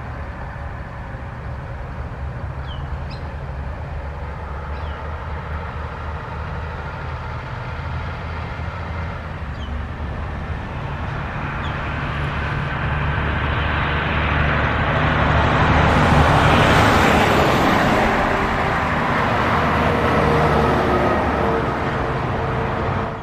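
Container freight wagons rolling past on the rails, a steady rumble and rattle of steel wheels that grows louder towards the end as the last wagons go by.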